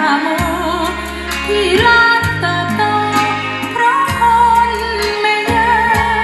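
A song playing back from a Pioneer PD-535 CD player: a singing voice with vibrato on long held notes over a steady bass and instrumental accompaniment, with a regular beat.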